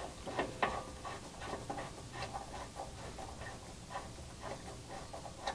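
Faint, scattered metallic ticks and light scraping as the brass pressure-adjusting screw of an Interpump K1 unloader valve is turned back in by hand.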